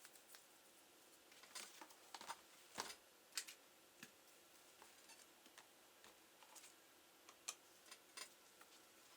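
Faint, scattered clicks and taps of a laptop's plastic case and small tools being handled, bunched together about one and a half to three and a half seconds in and sparser after that.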